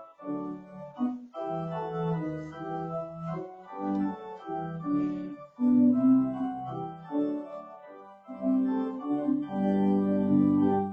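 Organ playing sustained chords at a slow pace, the notes changing every half second or so and swelling louder around six seconds in and again near the end.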